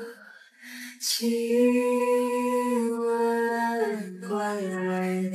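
A female voice singing slow, long held notes, unaccompanied, the pitch stepping down about four seconds in.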